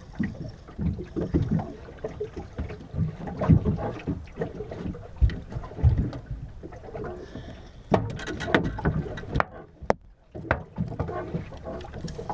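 Water slapping against a small wooden boat's hull, with wind on the microphone and irregular knocks and clicks. The sound drops out briefly about ten seconds in.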